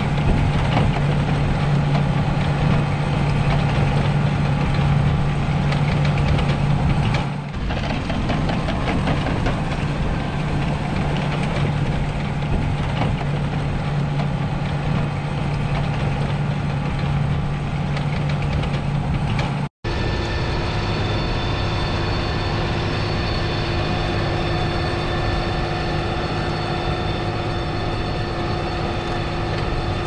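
John Deere tractor's diesel engine running steadily as it pulls a manure spreader across the field. About two-thirds through the sound cuts out for an instant and a steadier, higher whine with several held tones takes over.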